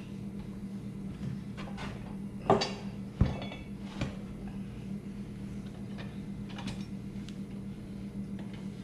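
Metal clanks and knocks from a manual bead-breaker bar and a Polaris wheel being worked during a tire change, the loudest about two and a half seconds in and a few lighter knocks after it, over a steady low hum.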